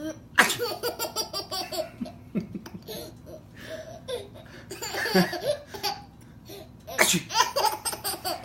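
A baby laughing: hearty belly laughs in quick, pulsing bursts. They come in several bouts separated by short pauses.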